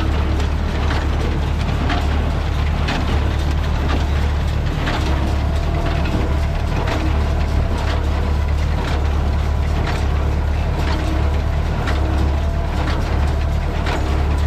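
Massey Ferguson 575 tractor's diesel engine running steadily under load, driving a New Holland 377 square baler, with a regular mechanical clack from the baler about once a second.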